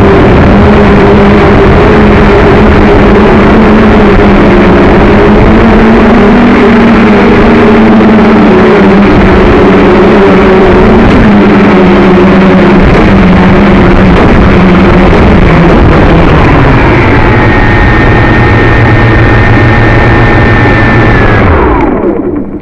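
JJRC X1 quadcopter's brushless motors and propellers, heard loud through the camera mounted on the drone, with a pitch that keeps wavering as the throttle changes against wind gusts. About 16 seconds in the pitch drops and settles to a steady hum with a thin high whine. Near the end the motors spin down and stop.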